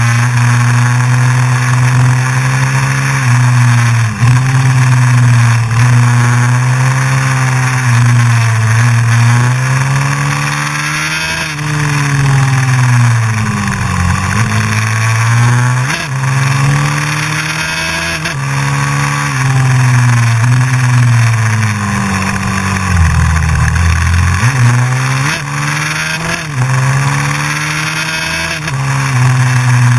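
Honda CRF450X's single-cylinder four-stroke engine under way. Its pitch rises as it accelerates and drops as it eases off, again and again, with the deepest drop about three quarters of the way through.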